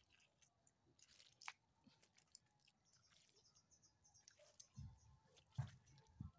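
Near silence with faint scattered ticks, and a few soft low thuds in the last second and a half.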